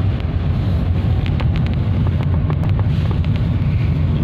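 Car in motion heard from inside the cabin: a steady low road-and-engine rumble.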